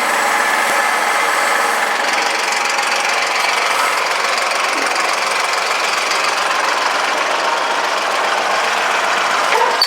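An engine running steadily, with a brief sharp squeak near the end.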